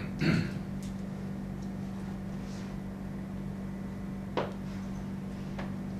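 Steady low room hum in a meeting room. A short louder sound comes just after the start, and a single sharp click about four and a half seconds in.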